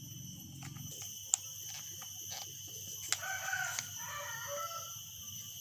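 A rooster crowing, one call about three seconds in and lasting over a second, over scattered small clicks and taps with one sharp click about a second in.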